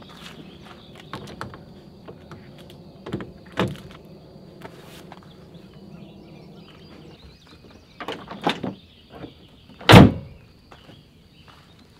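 Camping gear being packed into a pickup truck: scattered knocks and clunks, then a loud thump about ten seconds in, like a vehicle door or tailgate shutting.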